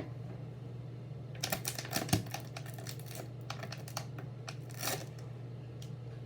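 Plastic label wrapper being peeled off a water bottle: scattered crinkling and crackling in short clusters, about a second and a half in and again near five seconds, over a steady low hum.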